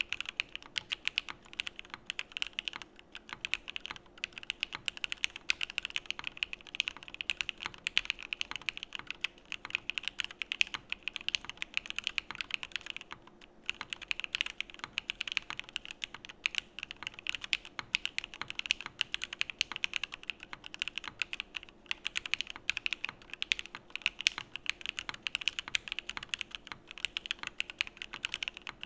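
Steady, fast typing on a mechanical keyboard: a Geonworks Frog board with lubed Alpaca v2 linear switches on an aluminum plate, giving a dense run of sharp keystroke clacks. The typing stops briefly about halfway through, then resumes.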